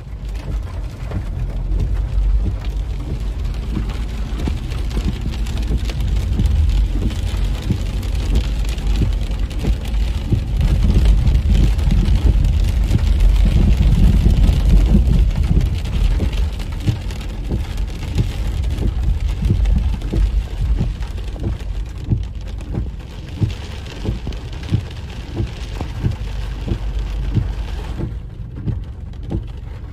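Heavy rain hitting a car's windshield and roof, heard from inside the cabin, as a dense stream of separate drop ticks over a deep rumble that grows louder for several seconds in the middle.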